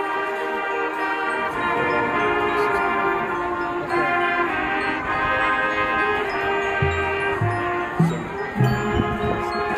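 Live band playing held chords with ringing mallet percussion such as chimes or glockenspiel. The chords change every couple of seconds, and a few low pitched drum strokes come near the end.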